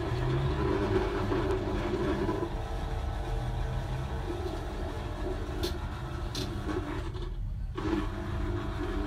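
Repaired Braun MultiQuick 3 citrus juicer (type 4161), its 20-watt motor and gear train running with a steady hum while the cone is pressed down. It stops briefly about seven and a half seconds in and starts again, the juicer now working and turning in both directions.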